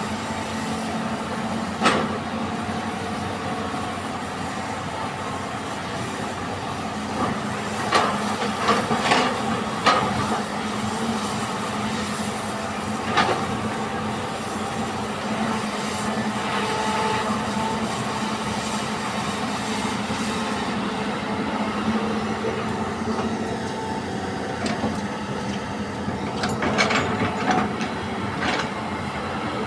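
Hitachi EX200 hydraulic excavator's diesel engine running steadily while loading soil into a dump truck, with scattered sharp knocks and clanks, a cluster near the end.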